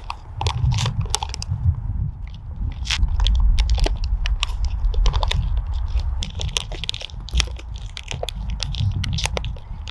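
Crinkling of Knorr pasta-side pouches and plastic forks scraping inside them as noodles are dug out, a run of scattered sharp crackles over a steady low rumble.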